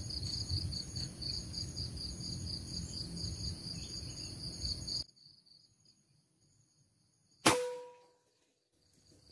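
Insects buzzing steadily in several high tones over a low rumble, cut off abruptly about halfway through. Then near silence and one sharp air-rifle shot near the end, with a brief metallic ring after it.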